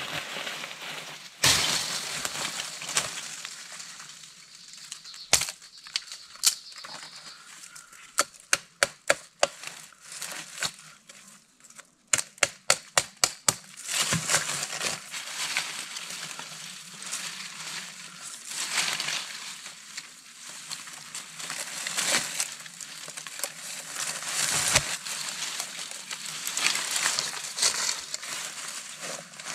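Dry leaves and undergrowth crackling and rustling as brush is handled and trampled, broken in the first half by a few single sharp cracks and two quick runs of sharp knocks.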